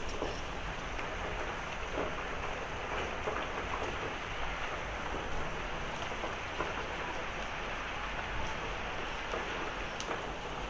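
Heavy rain falling steadily during a thunderstorm, an even hiss with scattered faint drop ticks.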